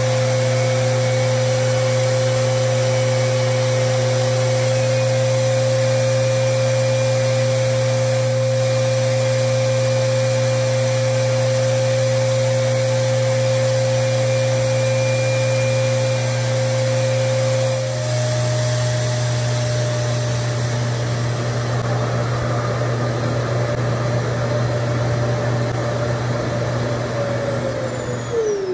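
RevAir reverse hair dryer running with a steady motor whine while it sucks hair into its wand. The whine steps up slightly in pitch about two thirds of the way through, then near the end the dryer is switched off and the whine falls away as the motor winds down.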